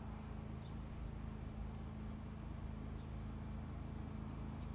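A steady, low mechanical hum with a faint background hiss and no distinct events.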